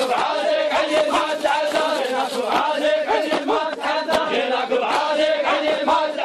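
A crowd of men chanting an Iraqi hosa refrain together, one loud group chant with a held note, over many sharp beats throughout.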